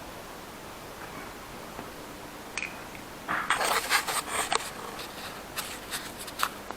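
Small hard objects being handled on a work surface. A sharp click comes about two and a half seconds in, then about a second and a half of clattering and scraping, then a few scattered light taps.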